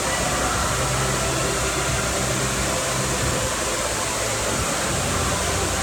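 Steady rush of waves breaking and churning in an indoor wave pool, an even, unbroken noise.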